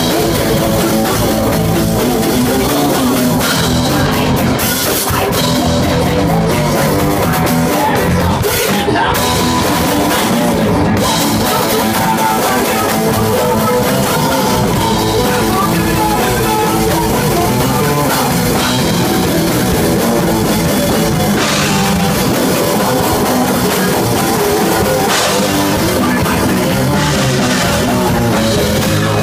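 Live loud punk-style rock band playing: drum kit, distorted electric guitars and bass, with shouted singing at times.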